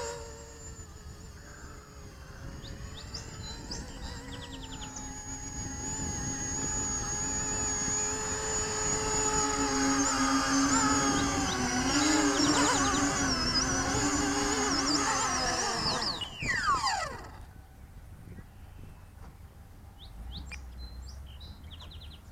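Electric motors and propellers of an E-flite Convergence RC plane whining in flight, growing louder and wavering in pitch. About 16 seconds in, the pitch drops steeply and the sound falls away.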